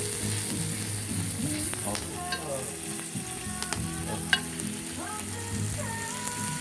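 Meat sizzling as it grills over a wood fire, a steady hiss with a few sharp clicks, the loudest about four seconds in.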